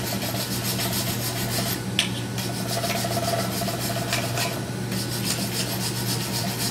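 Hand wire brush scrubbing rapidly back and forth on a metal pipe, a steady rasping scrape, stripping loose coating, flakes and rust from the surface before a repair.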